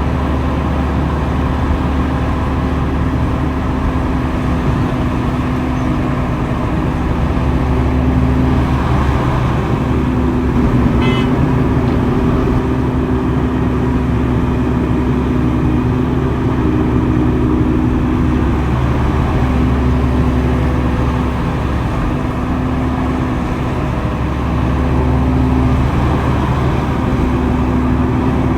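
Heavy earthmoving machinery's diesel engine running steadily with a low hum. A brief high-pitched tone sounds about eleven seconds in.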